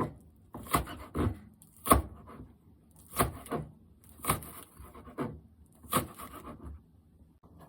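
Kitchen knife slicing green onion on a cutting board: separate sharp chops about once a second, some followed quickly by a lighter second stroke.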